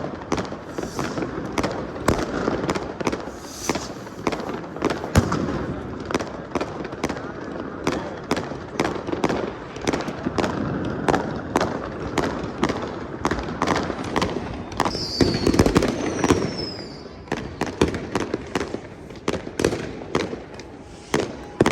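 New Year fireworks going off: a dense, unbroken run of bangs and crackles, with a couple of falling whistles about fifteen seconds in.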